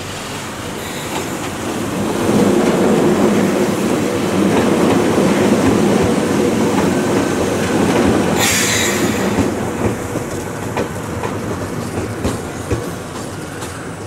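Ohmi Railway 800-series two-car electric train passing close by: the rumble of wheels and motors builds over about two seconds, holds loud, then fades as the train moves away. There is a brief hiss about eight seconds in, and a few sharp clicks near the end.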